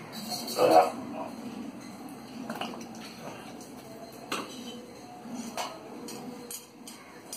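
Metal puja vessels and utensils clinking and knocking as they are handled, a few separate sharp clinks spread over several seconds.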